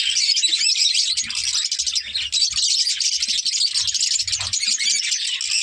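A flock of lovebirds chattering, many rapid high chirps overlapping into a continuous twittering din.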